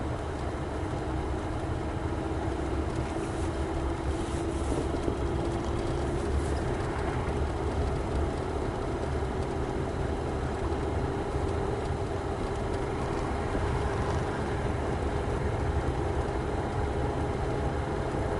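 A vehicle driving steadily: constant low road-and-engine rumble, with an engine note that rises slightly over the first several seconds and then holds steady.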